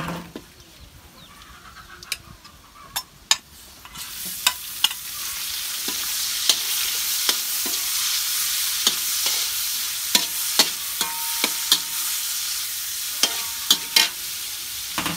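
Raw beef going into hot oil and garlic in a steel wok: a sizzle rises sharply about four seconds in and keeps going as the meat is stir-fried. A metal spatula clicks and scrapes against the wok throughout.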